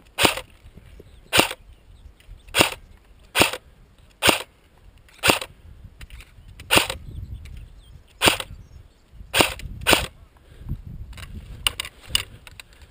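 CYMA CM.028 AK47 airsoft electric gun (AEG) firing single shots, a sharp crack about once a second, laying down suppressing fire to keep an opponent pinned. Near the end a few quicker, lighter shots follow.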